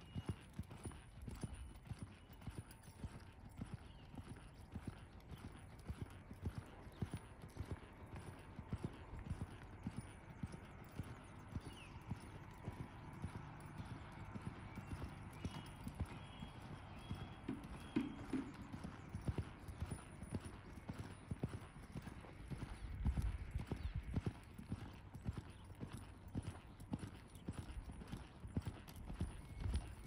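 Horse's hoofbeats on soft arena dirt at a lope, a steady run of muffled thuds.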